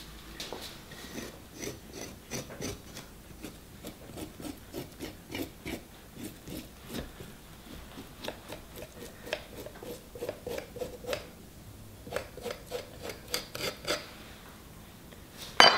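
Rhythmic scraping strokes, about two a second, as a utensil scrapes the skin off a pressure-steamed butternut squash on a wooden cutting board. A louder clatter comes right at the end.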